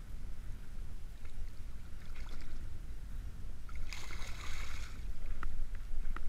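A hooked weakfish splashing at the water's surface as it is led in by hand, one short splash about four seconds in, over a steady low rumble of wind on the microphone.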